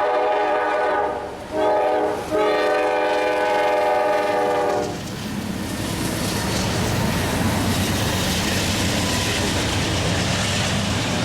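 Norfolk Southern locomotive's air horn sounding a chord in blasts: one ending about a second in, a short one, then a long one. After that the horn stops and the train's passing rumble and wheel clatter on the rails take over.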